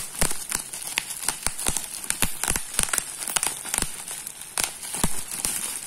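Plastic bubble wrap squeezed and crumpled by hand, crinkling with many sharp, irregular pops and clicks.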